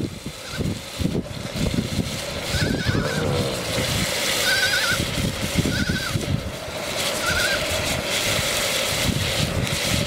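Sheep bleating every second or two over the crackle of an open wood fire.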